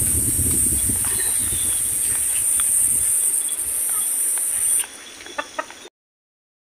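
Chickens clucking, over a low rumble and a steady high-pitched hiss. The sound drops sharply about five seconds in and cuts out briefly near the end.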